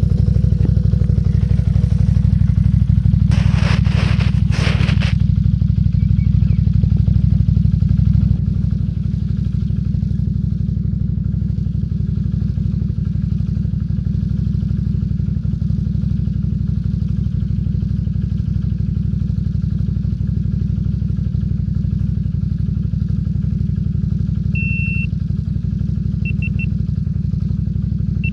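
Can-Am Renegade 800 XXC ATV's V-twin engine idling steadily, a little quieter after about eight seconds. A brief clatter comes about four seconds in, and a few short high beeps come near the end.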